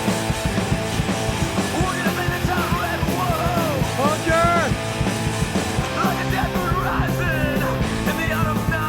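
Punk rock song with yelled vocals over a driving beat.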